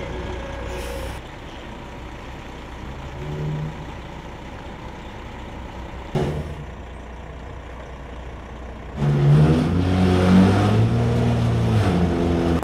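Diesel engine of a military tractor truck hauling a flatbed trailer, running steadily, with a short thump about six seconds in. About nine seconds in it grows much louder and revs up as the truck drives close past.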